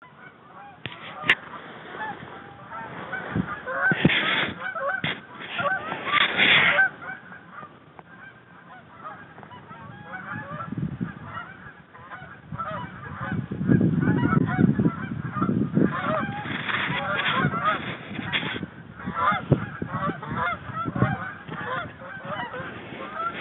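Canada geese honking and clucking, many calls overlapping. Louder bursts about four and six seconds in, and a louder, fuller stretch from about thirteen to nineteen seconds in.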